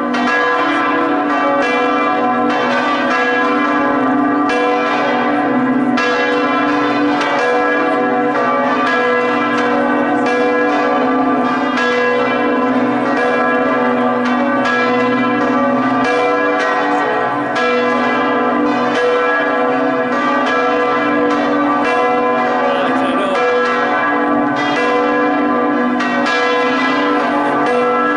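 Full peal of Prato Cathedral's church bells, all swinging together in a festive plenum; overlapping strokes ring on without a break.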